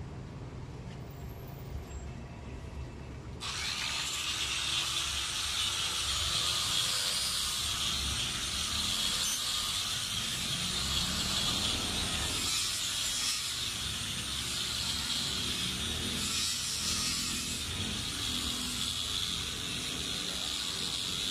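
Hand-held electric polisher with a 3,000-grit polishing pad running steadily on granite, the final polishing step. It starts abruptly a few seconds in.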